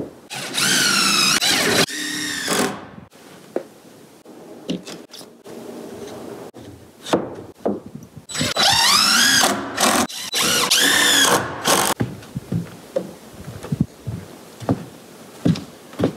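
Power drill driving screws into OSB in three runs, one near the start and two in quick succession about halfway through, the motor's pitch dipping and rising as it takes the load of each screw. Light knocks and tool handling between the runs.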